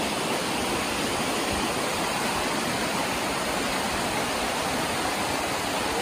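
Water rushing down the rocky cascade of the Urach waterfall: a steady, even rush with no pauses.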